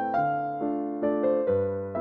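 Background music: an electric piano melody over held bass notes.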